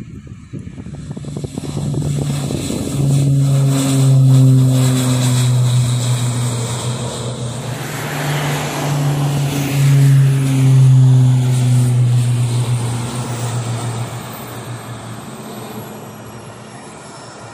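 N219 twin turboprop at takeoff power, a steady low propeller drone under a rushing engine noise that swells as the aircraft passes close by, peaks twice, then fades away in the second half.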